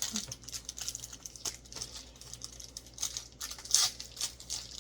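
Snack packet crinkling as it is handled and opened, in irregular rustles, with a sharper, louder rustle near the end.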